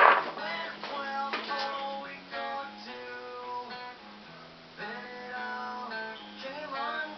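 Music with plucked and strummed acoustic guitar playing, with one sharp knock right at the start.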